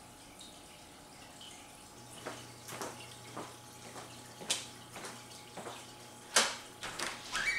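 Footsteps on a hardwood floor, a few each second, walking away, over a faint steady hum. About six and a half seconds in there is one sharper, louder click as he reaches the door.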